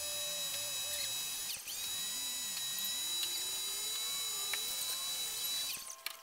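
Electric pressure washer running, a steady high motor whine with spray hiss, that cuts off near the end.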